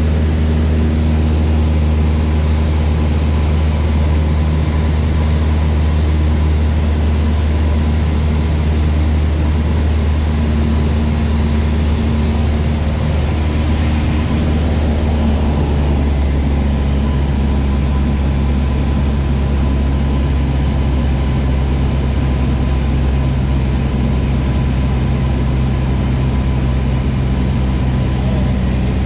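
Steady drone of a single-engine light aircraft's piston engine and propeller, heard from inside the cabin in flight. Its note shifts slightly about halfway through.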